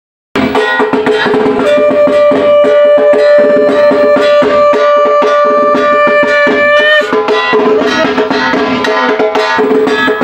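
Music with fast, steady drumming and a long held melodic note over it. It starts after a brief dropout at the very beginning.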